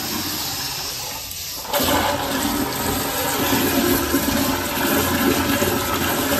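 Toilet flushing: a sudden rush of water that starts under two seconds in and runs on loudly, water sheeting down the sides of the bowl.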